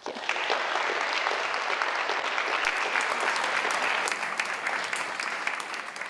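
Audience applauding: dense, steady clapping that starts right after the last words and eases a little near the end.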